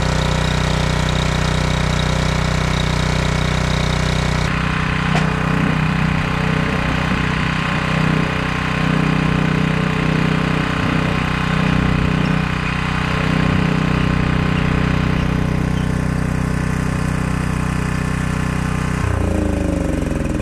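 Honda-powered portable generator's small engine running on a freshly cleaned carburettor with the choke off. Its low note swells and dips unevenly through the middle. Near the end the pitch falls away as it winds down.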